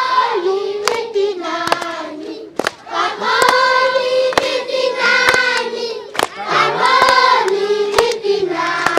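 A group of schoolchildren singing a welcome song together on long held notes, with hand claps on the beat about once a second.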